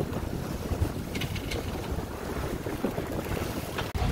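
Wind rushing over the microphone on the deck of a sailing catamaran under way, with the wash of the sea along the hulls.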